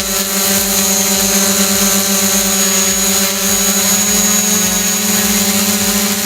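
DJI Mavic Pro quadcopter hovering close to the microphone on its standard propellers: a loud, steady buzzing hum with a high whine above it.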